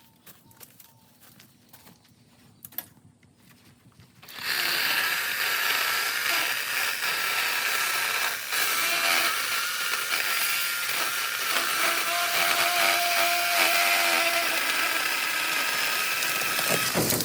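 Ryobi 18-volt cordless chainsaw starting up about four seconds in and running with a steady motor-and-chain whine for about thirteen seconds, then cutting off sharply near the end. A few faint clicks come before it starts.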